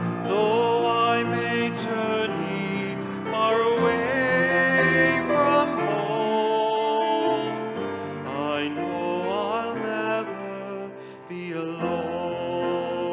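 Slow hymn music: a melody line that slides between notes over sustained accompanying chords.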